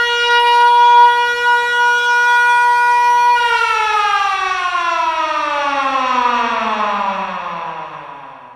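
Siren-type alarm holding one steady tone for about three seconds, then winding down in pitch and fading out over the next five seconds.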